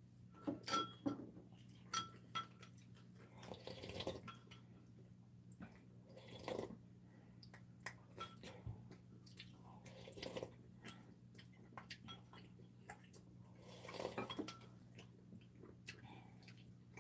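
Metal chopsticks and spoons clicking and clinking now and then against ceramic bowls and plates, in scattered light taps with pauses between.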